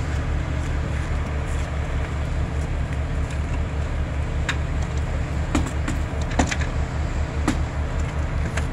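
Large diesel engine of a fire apparatus running at the fireground, a steady fast low throb, with several sharp knocks and clicks in the second half.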